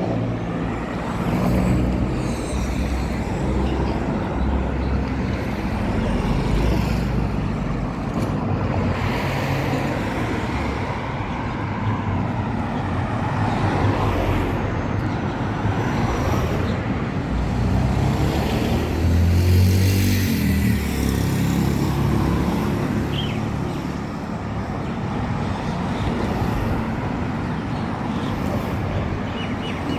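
Road traffic: motor vehicles running past in a steady rumble, swelling louder several times as cars pass, loudest about twenty seconds in.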